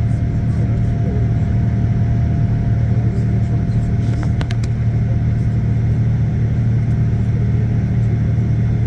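Steady low drone inside the cabin of a Boeing 787-9 airliner climbing after takeoff: engine and airflow noise, with a couple of faint clicks midway.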